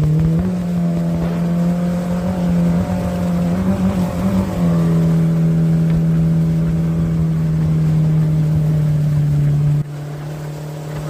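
Outboard jet motor pushing a jon boat upriver at speed, heard from aboard: a steady engine note that climbs a little just after the start and wavers about four seconds in. Near the end the level drops suddenly and the engine runs on at a slightly lower pitch.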